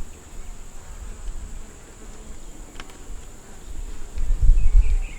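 Honeybees buzzing around an open hive during an inspection, with a single light click a little before three seconds and a low rumble rising from about four seconds in.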